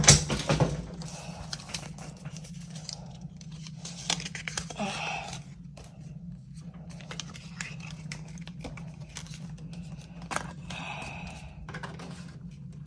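A steady low hum in a small room, with scattered light knocks, clicks and rustles of things being handled.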